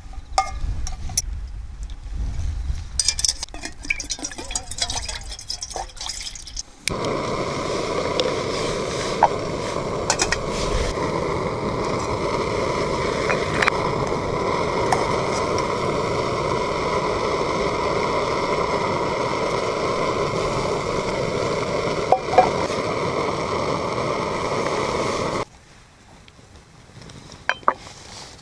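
A metal spoon scraping and clinking against a metal camping pot, then a canister gas stove's burner hissing steadily under the pot for about eighteen seconds before cutting off abruptly near the end.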